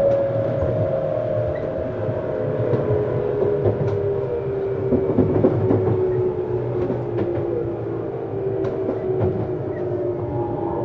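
Tokyu 7700-series commuter train motor car running, heard from inside the car: a steady low rumble with a cluster of motor tones that slowly fall in pitch, and scattered light clicks from the track.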